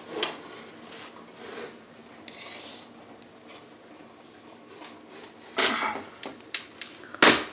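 An Adams elevator button panel being handled and turned over by hand. There is faint rubbing and small clicks, then a few louder knocks about six seconds in and again near the end.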